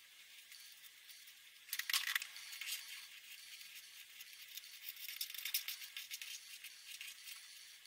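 Marker pen scratching and dabbing on paper: faint at first, then from about two seconds in a quick run of thin, scratchy strokes and ticks.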